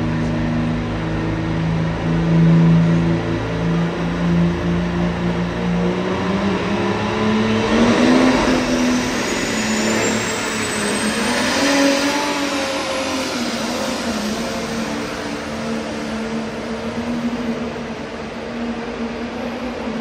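Pulling tractor's engine running hard, its pitch shifting after about six seconds as it comes up to full power and pulls the sled. From about seven seconds in, a high whine climbs steeply in pitch over a few seconds.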